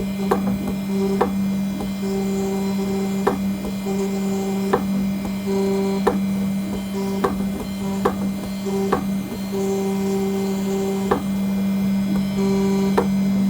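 CNC engraving machine cutting an aluminium nameplate: a steady spindle hum, with a higher motor tone that starts and stops in short stretches as the machine moves, and irregular sharp ticks about once a second.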